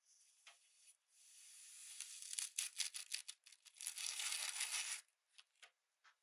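Kinetic sand crunching and crackling as a plastic cookie cutter is pressed down through it, building from about a second in and stopping about a second before the end, followed by a few soft ticks.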